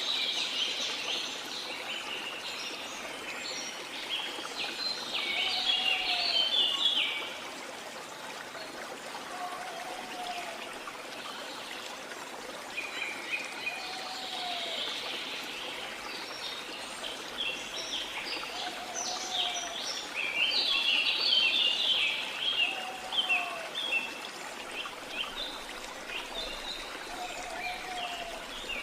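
Small songbirds chirping in dense bursts over a steady wash of water. A short, low, arched call repeats about every four seconds.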